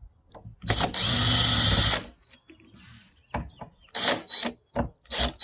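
Power drill/driver running in short bursts, turning out the screws of an RV door lock: one run of about a second, a few light ticks, then shorter bursts, and it starts up again near the end.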